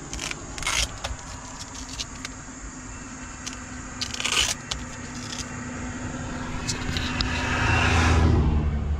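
Scraping and clicking of a hand handling an RC car's LiPo battery packs, wires and velcro straps close to the microphone. Near the end a vehicle's noise swells up with a low rumble and dies away.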